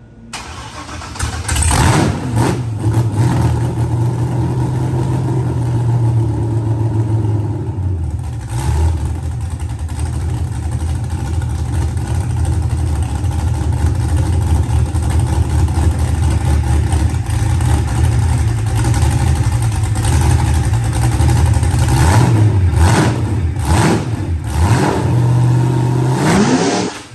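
LS V8 engine with an aggressive aftermarket cam running loud and being revved several times, its pitch sweeping up and down. It cuts off abruptly near the end.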